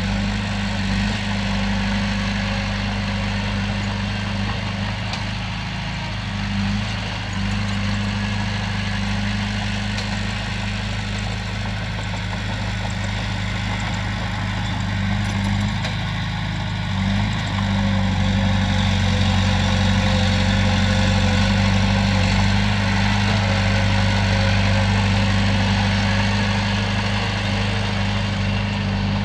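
Komatsu bulldozer's diesel engine running steadily, its pitch and loudness shifting a little partway through as the load changes.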